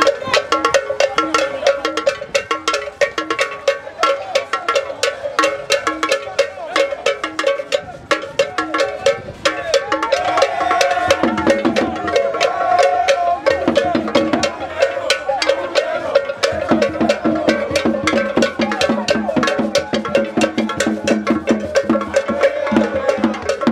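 Traditional Fante festival percussion: a metal bell struck in a fast, steady pattern with drums. Deeper drum strokes grow stronger about halfway through.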